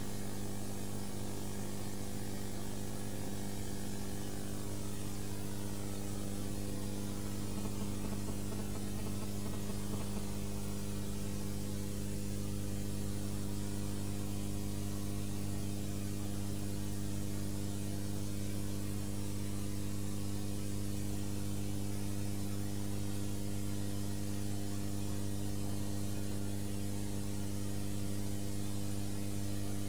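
Steady electrical mains hum, a low buzz made of several evenly spaced steady tones, with a faint hiss over it.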